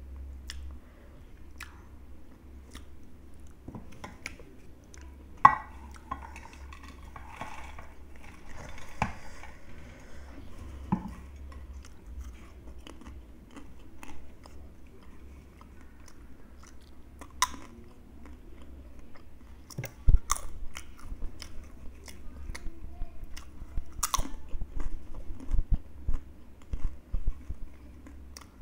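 Close-miked chewing and crunching of crisp fried snack chips: sharp crunchy bites with chewing between them, coming thicker in the last third.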